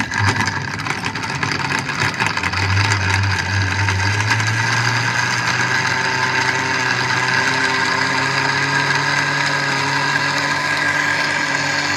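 Electric countertop blender with a glass jar running steadily, blending ice cubes, milk and mango pulp. Rattling clicks of ice being crushed come in the first few seconds, and the motor's pitch rises a little before settling into a smooth, steady run.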